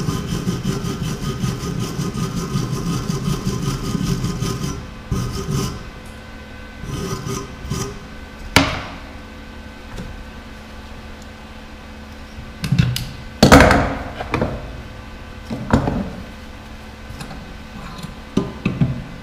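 Hand wire brush scrubbing a fresh weld on a small metal piece clamped in a bench vise, with rapid strokes for about five seconds. After that come a few sharp knocks and clatters as tools and metal are handled, the loudest about thirteen seconds in.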